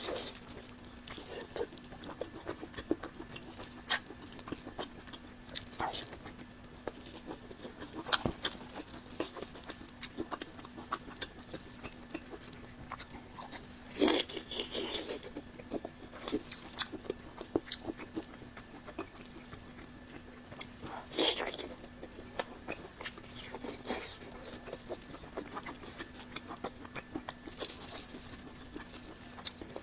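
Close-miked chewing and biting of fatty cured pork belly (Chinese larou), with irregular wet mouth clicks and crunching bites. A few louder bites stand out, the loudest about halfway through. A faint steady hum sits underneath.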